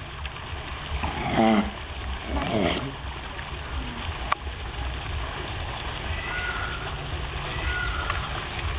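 Seal calling twice in quick succession, two short pitched barks about a second apart, over a steady low rumble, with a single sharp click midway.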